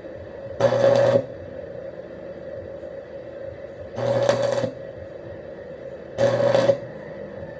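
Electric arc welder laying short tack welds: three buzzing, crackling bursts of well under a second each, about half a second in, at four seconds and just past six seconds, with a steady low hum between them.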